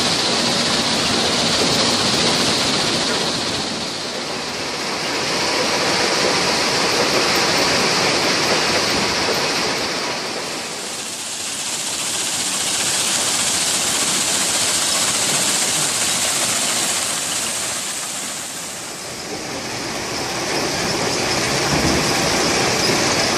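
A jaw-crusher stone crushing production line running: a loud, steady machinery din of rumble and hiss that eases off and swells back three times.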